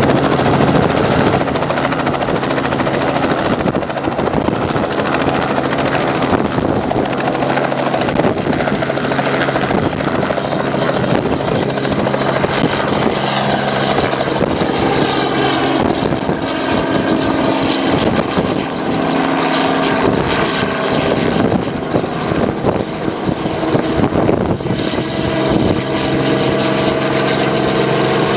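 Robinson R44 helicopter lifting off and climbing away overhead, its two-bladed main rotor and six-cylinder Lycoming piston engine running steadily, the pitch of its tones bending about halfway through as it passes.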